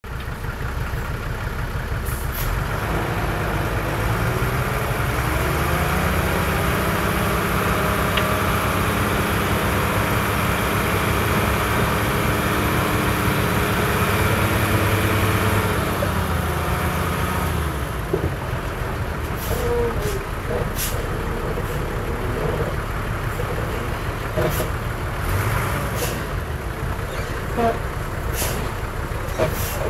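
Heavy diesel engine of earth-moving machinery revving up, holding at high revs, and dropping back after about sixteen seconds. It then runs lower, with a series of sharp knocks in the last ten seconds.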